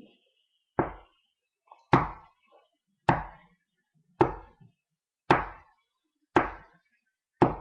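Slow, steady knocking: seven single knocks evenly spaced a little over a second apart, each a dull thud with a short ring. It is the unexplained knocking in the house, which the person filming says she is not making.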